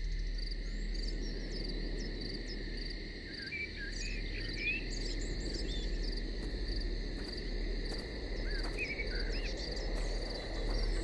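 Woodland ambience: a steady chorus of insects trilling in a pulsing rhythm, with scattered short bird chirps over a low background hush.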